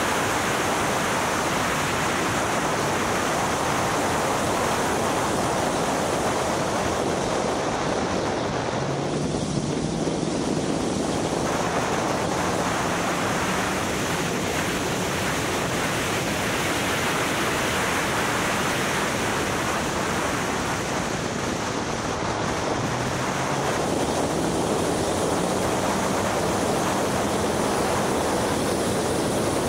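Steady rush of wind noise on the microphone of a vehicle at speed on track, with a faint engine note underneath that climbs slowly in pitch twice, about a third of the way in and again in the second half.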